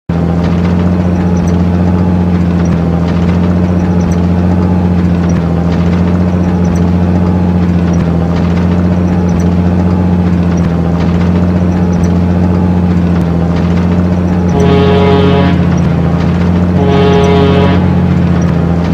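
Heavy vehicle engine running steadily at a low, even pitch, with two flat horn blasts of about a second each near the end.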